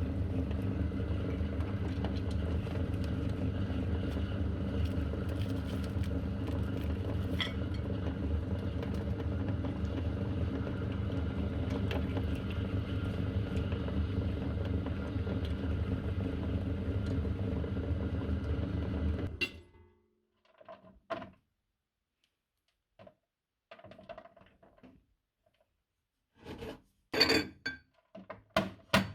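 Electric meat grinder motor running steadily, then switched off about two-thirds of the way through. After that come a few scattered clicks and clinks of parts being handled.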